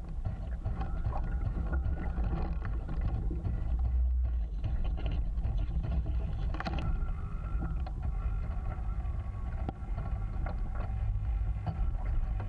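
Small radio-controlled sailing yacht under way, heard from a camera taped to its mast: a steady low rumble of wind and water, with scattered small ticks and splashes of water against the hull.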